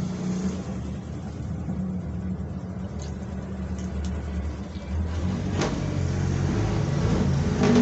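A steady low hum, with a few faint clicks and smacks of chewing on chicken feet about three, four and five and a half seconds in.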